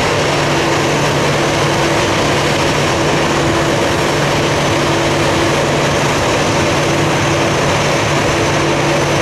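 The four CFM56-5C turbofans of an Airbus A340-300 idling as the airliner taxis past: a steady jet noise with a low hum and a faint high whine.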